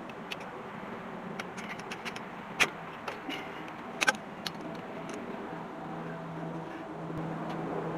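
Channel-lock pliers clinking against the metal grease cap on a truck's front wheel hub: a few scattered sharp metallic clicks, the loudest about two and a half and four seconds in, over a steady low hum.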